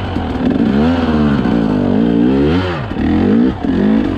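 KTM dirt bike engine revving up and down over and over under load as the bike claws up a rocky climb: several rises in pitch, each falling back as the throttle is rolled off, the longest peaking a little past halfway.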